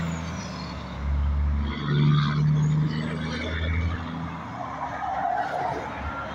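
Semi truck's diesel engine running under load as the rig pulls away, a low drone that is loudest in the first couple of seconds, with road traffic passing close by.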